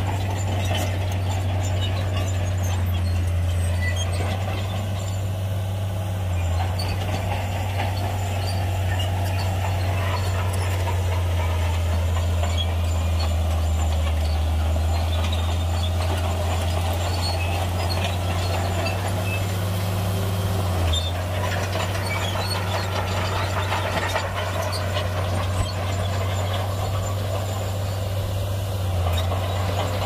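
Shantui bulldozer's diesel engine running steadily with a deep drone, with clanking and rattling from the tracks and the rock fill it pushes.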